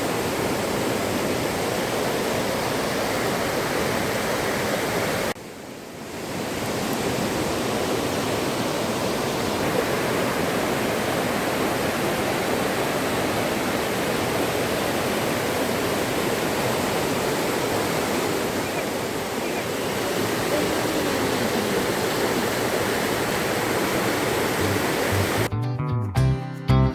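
Steady, loud rush of falling water from the tall Shannon Falls waterfall, briefly dropping away about five seconds in before building back. Guitar music starts near the end.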